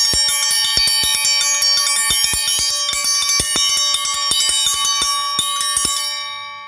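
Chimes ringing: a dense, irregular jangle of metal tones struck several times a second, fading out near the end.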